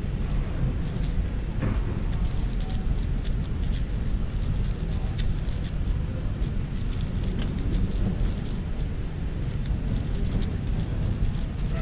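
The layers of a MoYu AoShi WR M 6x6 speedcube being turned quickly, making rapid, irregular plastic clicks and clacks. Underneath runs a steady low rumble from the large hall.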